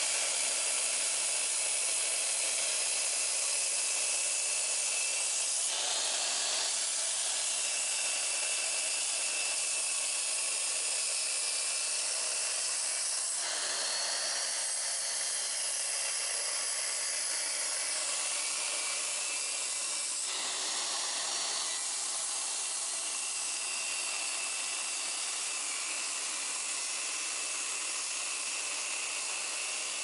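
Mitre saw running and making an angled cut across a Tasmanian Oak board, heard as a steady hiss; the tone shifts abruptly a few times.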